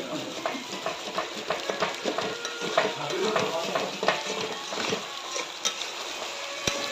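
A spatula stirs and scrapes chicken pieces around a kadai (wok), with repeated irregular scrapes against the pan. Under the scraping, the chicken sizzles as it fries in a thick masala.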